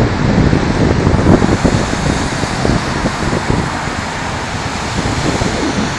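Strong wind buffeting the phone's microphone over the steady rush of large storm waves breaking on the lakeshore, a little louder in the first couple of seconds.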